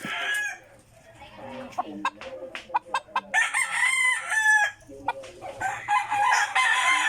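Roosters crowing: one crow trails off at the start, another comes about three seconds in, and a third begins near six seconds and is still going at the end. Lower clucking and a few sharp clicks fill the gap between the first two crows.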